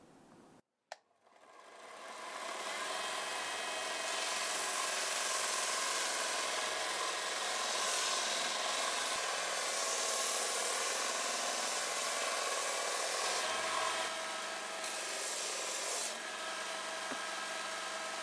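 Electric sander spinning up about a second in, then running steadily against a glued-up hardwood panel to sand away glue marks and flatten the uneven surface. Its level dips slightly near the end.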